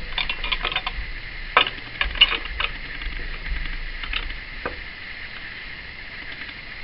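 Steel G-clamp being screwed tight against a wood block: a run of light clicks and knocks, dense in the first few seconds and only a couple later, over a faint steady high whine.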